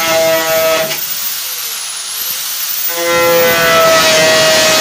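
Small angle grinder with four nails fixed in its spindle nut in place of a disc, running with a steady high whine while the nails bore through a plastic jug. The whine drops out about a second in, leaving a hissing scrape, and comes back steady about three seconds in.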